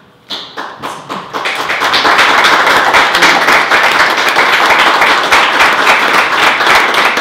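Audience applauding: a few scattered claps that build within about two seconds into full, steady applause.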